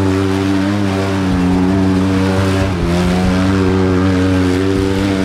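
The 6x6 mini truck's engine running steadily under throttle, its pitch dipping briefly twice.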